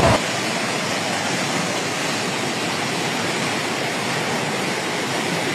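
Steady rushing noise of fast-flowing floodwater, an even hiss with no distinct events.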